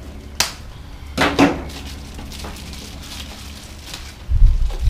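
Handling noises as a wire tie is worked off a bottle of compressor oil: a sharp click, a short rattle a second later, then a low thump near the end, over a steady low rumble.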